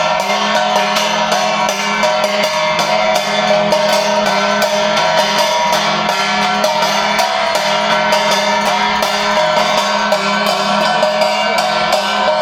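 Devotional arati music: drums and cymbals beaten in a fast, even rhythm over steady held tones.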